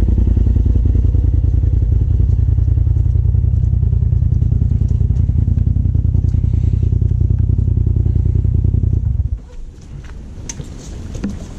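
Polaris RZR side-by-side's engine idling steadily close by, then stopping abruptly about nine seconds in. A few faint clicks and rustles follow.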